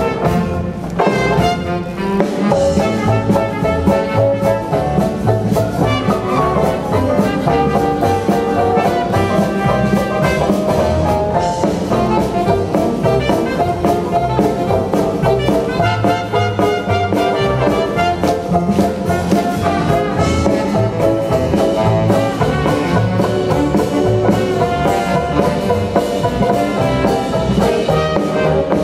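Live jazz band playing a Charleston, with trumpets and trombones to the fore over a steady, even beat.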